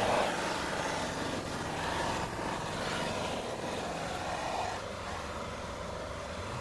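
Hand-held propane torch burning with a steady rushing hiss of the flame, played over sheet-metal seams to dry out moisture before painting.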